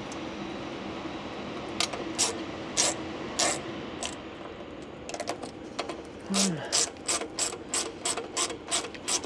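Hand ratchet clicking as a bolt holding an aircraft engine's low oil pressure switch is run in, not yet fully tight. A few separate clicks come about two seconds in, then a faster, even run of about three clicks a second from about five seconds in, over a steady low hum.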